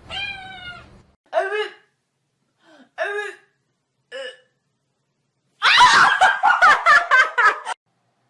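A domestic cat meows in four short calls, spaced a second or so apart. Near the end comes a louder, rapid run of yowling cries lasting about two seconds.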